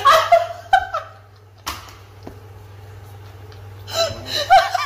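A person's short wordless vocal sounds in the first second and again near the end, with a sharp knock in between, over a steady low hum.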